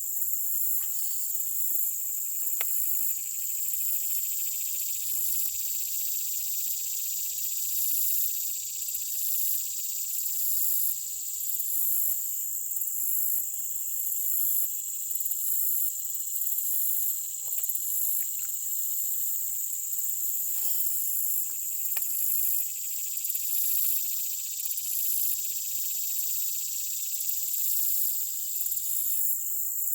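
Chorus of crickets and other insects: a steady high-pitched shrill with a faster, evenly pulsing trill above it, and a few faint clicks.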